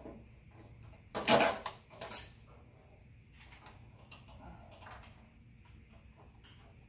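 Hand-work on a go-kart's metal electrical panel while a reversing solenoid is being hooked back up: a loud clatter about a second in, a smaller knock just after, then light clicks and rustles of parts and cables being handled.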